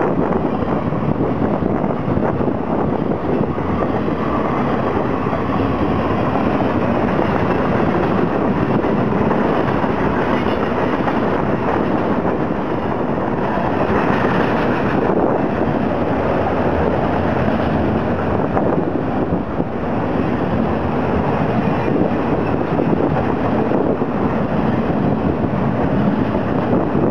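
Freight cars of a fast-moving mixed freight train rolling past, a steady rush of wheels on rail with a light clickety-clack.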